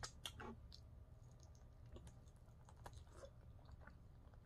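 Near silence with faint, scattered clicks of a person chewing buffalo chicken wing with the mouth closed.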